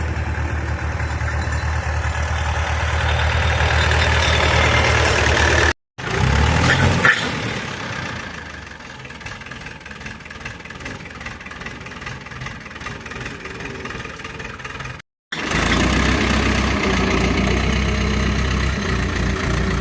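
Ursus C-360 tractor's diesel engine running with a steady low rumble, heard in three pieces joined by abrupt cuts; the middle piece is quieter and the first and last louder.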